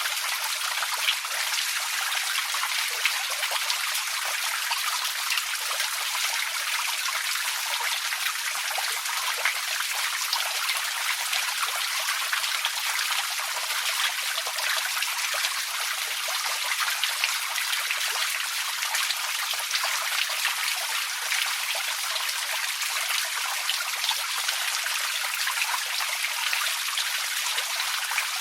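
Small creek flowing and trickling over stones, a steady bright splashing with many small droplet sounds.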